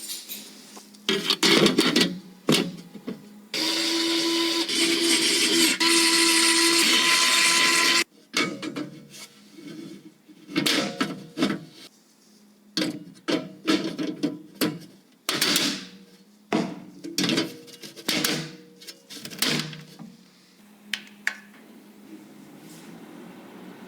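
Computer parts being handled and fitted: a run of sharp plastic and metal clicks and knocks, broken by a steady motorized whir lasting about four seconds, likely a small power tool or a fan.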